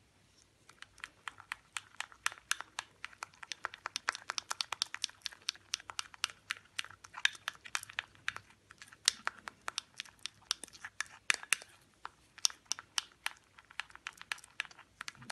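White plastic spoon stirring liquid hand-wash mixture in a glass bowl, clicking and scraping against the glass several times a second, with a short pause about three-quarters of the way through.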